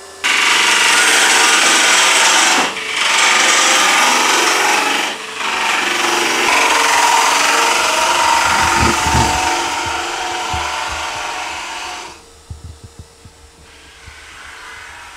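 Woodturning on a lathe: a tool or abrasive held against the spinning wooden workpiece gives a loud, steady scraping hiss, broken twice briefly, which falls away about twelve seconds in.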